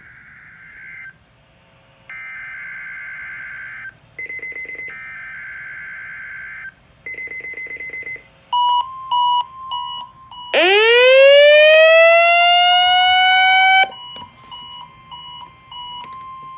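NOAA Weather Radio test signal: three screeching SAME digital header bursts, about two seconds each, followed by the steady 1050 Hz warning alarm tone with pulsing beeps over it. A few seconds into the alarm tone, a loud rising, whistling tone joins for about three seconds, then cuts off.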